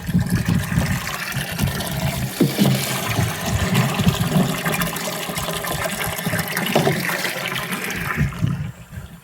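Water pouring steadily from a jug onto a garden bed, stopping about a second before the end.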